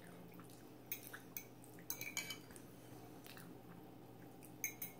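Faint, scattered clicks of cutlery against a plate, a few single taps and a short cluster about two seconds in and again near the end.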